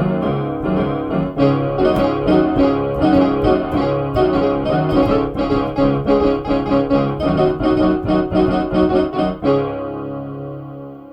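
Electronic keyboard music in a piano sound: a quick, rhythmic run of notes, ending about nine and a half seconds in on a held chord that fades out.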